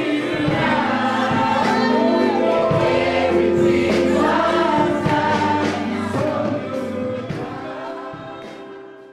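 Gospel choir singing over instrumental accompaniment, fading out over the last few seconds.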